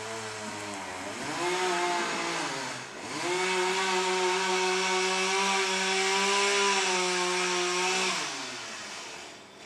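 Chainsaw engine revving. It picks up about a second in, dips briefly near three seconds, holds at high revs for about five seconds, then winds down near the end.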